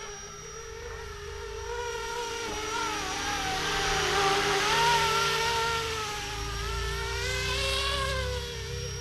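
Electric 450-size RC helicopter (Flishrc Little Bird 450) in flight: the high buzzing whine of its motor and rotors grows louder as it passes close, peaks about halfway through, then wavers in pitch and swells again near the end before easing off.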